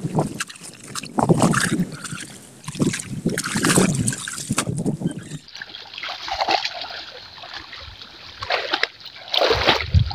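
Shallow muddy water splashing and sloshing as people wade in a flooded paddy field and pull clumps of plants up out of the water by hand, in irregular splashes about a second or two apart.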